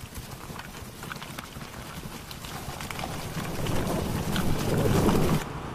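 Dense crackling rustle of a teeming mass of driver ants. From about halfway it swells into a louder, lower rumbling rustle, then cuts off suddenly near the end.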